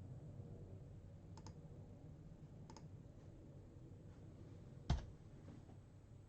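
Two small double clicks about a second and a half apart, then a single louder knock near the end, over a faint room hum.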